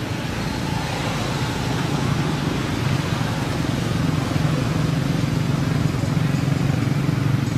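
Motor vehicle engine running steadily, a constant low rumble.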